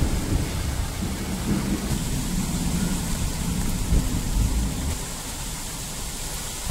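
Thunder rolling and rumbling in the wake of a lightning flash, swelling and easing, loudest about four seconds in, over a steady hiss.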